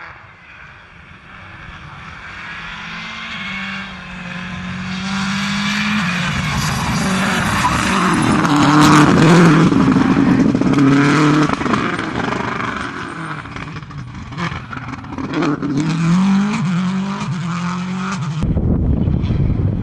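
Rally car engines run flat out past the microphone: one car comes in growing louder to a peak about halfway, revs rising and dropping through gear changes, then a second car accelerates with its revs climbing in steps. The sound changes abruptly near the end.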